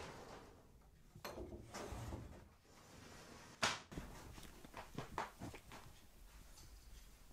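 Kittens wrestling on a blanket-covered sofa: faint rustling and scuffing of the fabric with soft thumps, the loudest a sudden scuff about three and a half seconds in, followed by a run of quick scrabbling strokes.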